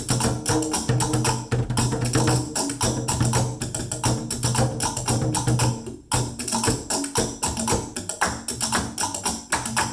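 Household found-object percussion, with sticks striking plastic containers and similar everyday items, played as a fast, dense drum-circle rhythm. There is a short break about six seconds in.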